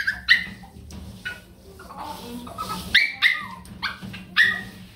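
Small dog giving about half a dozen short, sharp yips and barks while being washed.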